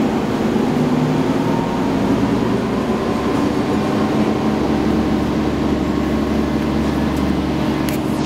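Cabin noise of a 2010 Nova Bus LFS city bus under way: a steady engine and drivetrain drone with road rumble. The drone's pitch steps up a little about three seconds in.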